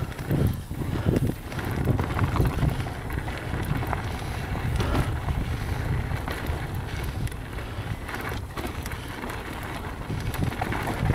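Mountain bike rolling down a rough dirt trail: a steady low rumble of tyres over the dirt with light rattles and ticks, under heavy wind buffeting on the camera's microphone.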